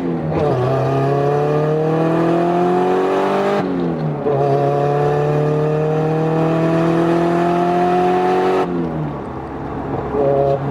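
Nissan S14 Silvia's engine pulling at wide-open throttle, its pitch climbing steadily through the gears, with upshifts right at the start and about three and a half seconds in, then the throttle lifting near the end. It is a hard pull to check the air-fuel ratio on a newly fitted wideband gauge, which read safe.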